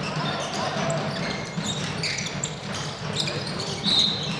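Indoor handball play: the ball bouncing and shoes squeaking on the hall floor, with players shouting. A short whistle blast comes near the end as a player goes down.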